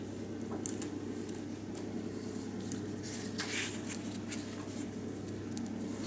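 Paper rustling as the pages of a poetry book are leafed through by hand: a few short, soft rustles, the longest about halfway through, over a steady low room hum.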